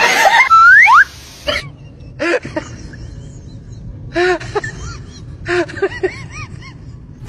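A loud whistle-like tone glides upward in the first second. Then, over a low background, a cat gives short, arching mews: one about two seconds in, another about four seconds in, and a quick run of them near the end.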